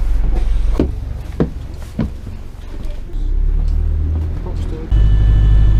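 Low rumble of a bus engine, with a few sharp knocks in the first two seconds. About five seconds in, a louder, deeper rumble with a faint steady whine starts suddenly.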